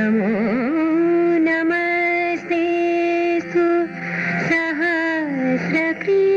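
A solo voice singing a devotional song in Indian classical style, holding long notes with vibrato and sliding between pitches.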